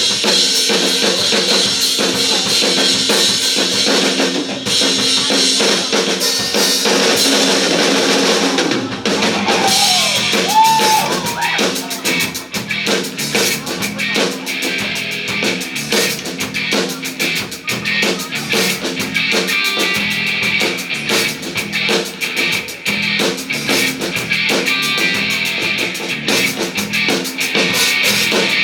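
Live rock band playing an instrumental intro, the drum kit (bass drum and snare) driving it under bass and two electric guitars. A short bending guitar line stands out about ten seconds in.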